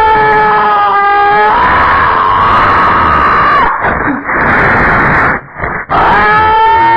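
Angry cat yowling loudly: a long, wavering howl, then a harsh hissing snarl, with short breaks in the middle, and another howl starting near the end.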